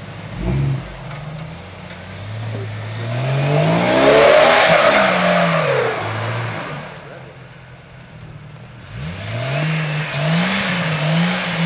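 Jeep Cherokee XJ's engine revving under load as it climbs a snowy, rutted trail: the revs rise to a peak a few seconds in and fall away, then rise again about two-thirds of the way through and waver up and down. A short thump comes near the start.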